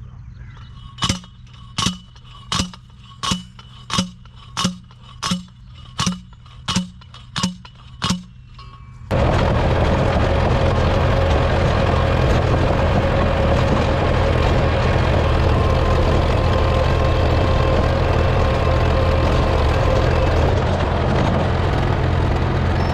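About eleven sharp, evenly spaced knocks, roughly one every 0.7 s, over a faint low hum. About nine seconds in, a loud, steady mechanical running noise cuts in suddenly and continues.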